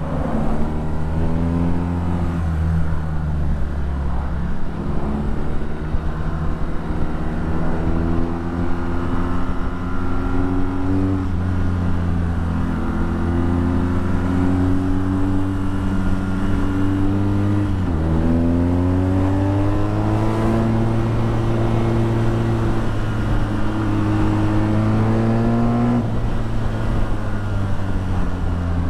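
BMW R nineT's 1170 cc boxer twin through an Akrapovic exhaust, pulling through the gears: the engine note climbs and drops back at each shift several times. About two-thirds of the way in the revs fall sharply and then climb again.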